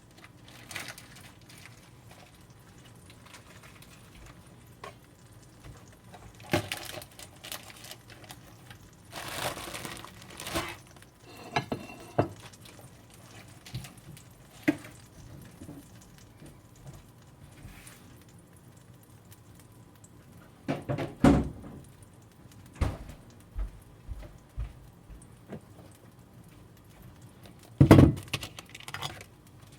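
Kitchen handling sounds: scattered knocks and clatter of utensils and dishes, with a brief rustling patch about ten seconds in and two heavy thumps, the loudest, about two-thirds through and near the end.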